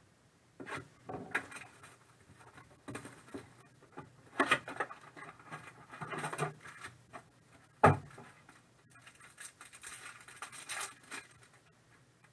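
Cardboard trading-card blaster box being pried open by hand and its foil packs handled: irregular rustling, crinkling and scraping, with one sharp knock about eight seconds in.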